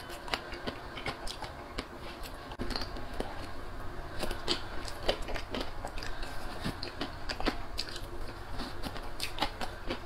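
Close-miked chewing and biting of a frozen chocolate-coated banana, its hard chocolate shell giving many small, irregular crunches and clicks.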